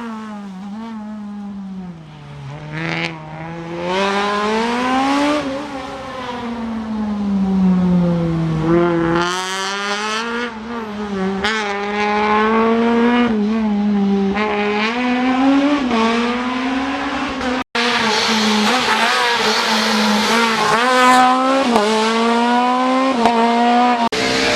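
Rally car engine revving hard and dropping back again and again through gear changes and braking on a special stage. An abrupt cut about two-thirds through leads to a car held at high revs.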